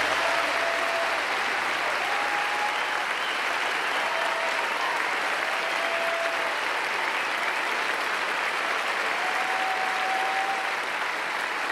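Large theatre audience applauding steadily at the end of a bluegrass number, with a few held cries from the crowd rising above the clapping now and then.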